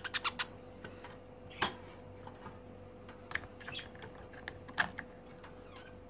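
Wire birdcage door clicking and rattling as it is handled and opened: a quick run of sharp metallic clicks at the start, then single clicks every second or two, over a faint steady hum.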